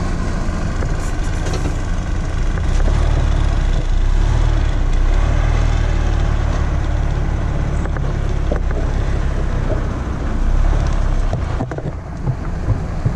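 Heavy truck's diesel engine running as the truck moves slowly. The low drone grows heavier a couple of seconds in and eases off near the end.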